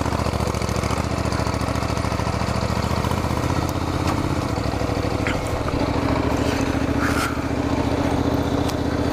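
Honda NC700X's 670 cc parallel-twin engine running at a steady pace as the motorcycle rides along a gravel road.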